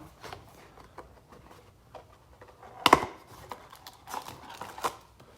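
Trading cards being handled and flipped through: light clicks and rustles, with one sharper snap about three seconds in.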